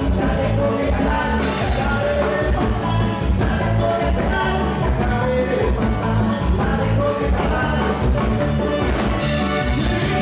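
Latin dance music with a steady beat, with percussion and a singing voice.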